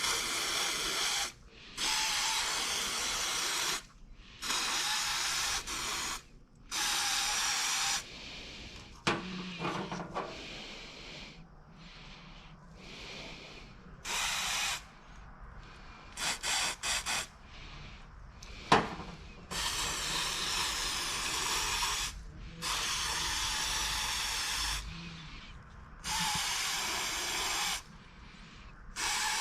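A pressurised spray nozzle hissing in repeated blasts of one to two seconds each, starting and stopping sharply. About midway there is a quick run of short puffs, then a sharp click.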